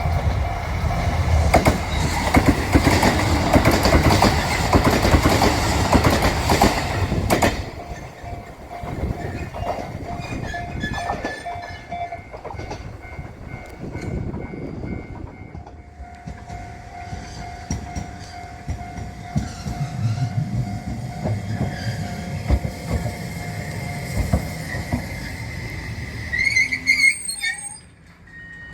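JR Nanohana diesel train passing over the level crossing at high speed: loud wheel and rail noise for about the first seven seconds, then dropping away sharply. A quieter streetcar follows, running past with a steady hum from about sixteen seconds in and a short rising squeal near the end.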